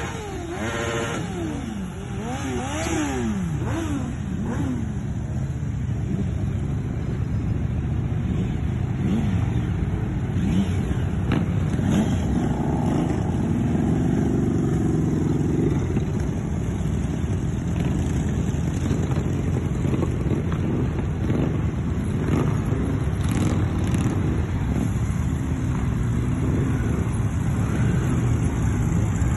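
A stream of motorcycles riding past one after another, engines running and revving. In the first few seconds the engine pitch rises and falls as bikes go by.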